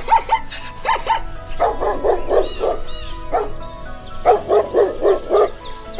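A small dog yapping in two quick runs of short, high barks, about five a second, over soft background music.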